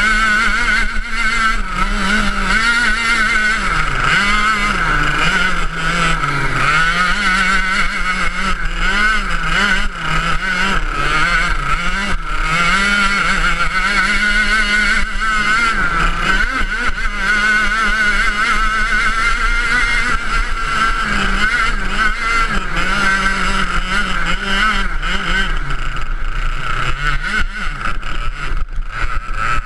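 Ice kart engine heard from the driver's seat, running at full throttle. Its pitch drops and climbs again many times through the lap as the throttle is eased for the bends and reopened.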